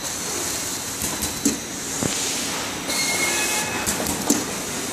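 Automatic sticker labeling machine running: a steady mechanical whir and hiss with irregular clicks and knocks, two of them sharp and loud, and a few brief thin squeals near the middle.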